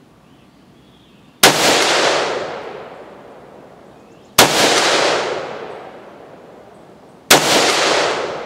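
Three shots from a Colt Competition CSR-1516 semi-automatic rifle in 5.56mm/.223, fired one at a time about three seconds apart. Each is a sharp crack that rings on and fades over about a second.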